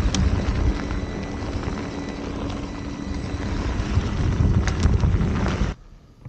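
Wind buffeting the microphone and tyre rumble from an electric unicycle riding fast over a rough dirt trail, with a faint steady hum and a few sharp knocks. The sound cuts off abruptly near the end.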